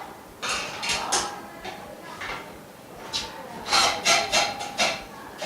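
Frame bars of a dust-free booth being handled and fitted together during assembly: a series of irregular scrapes and knocks, some with a short ring.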